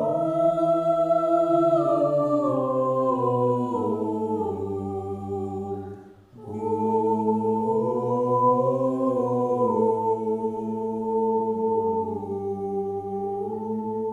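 Mixed-voice a cappella choir singing slow, sustained chords. The voices step down together over the first few seconds, break off briefly for a breath about six seconds in, then come in again on a new chord and hold it.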